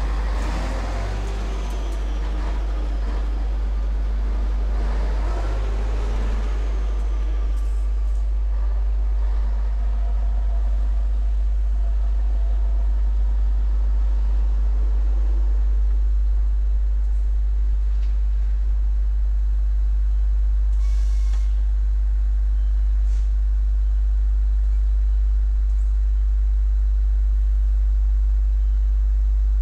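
Diesel engine of a 1978 Scania 111 tractor unit running as the truck pulls away, its note rising and falling over the first several seconds and then settling to a steady run, over a steady deep rumble. A short hiss comes about two-thirds of the way in.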